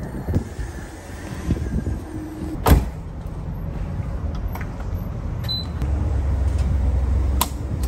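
Gas station refuelling: an SUV pulls up to the pump, a sharp knock sounds a little under three seconds in, then gasoline is pumped through the nozzle into the tank with a steady low hum from about six seconds in, and a small click near the end.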